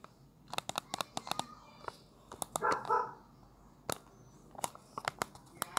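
Keys of a Volkano smart TV remote's miniature QWERTY keyboard being pressed, many quick plastic clicks at an uneven rhythm as text is deleted and retyped. A short double call, like a small dog's yelp, cuts in near the middle.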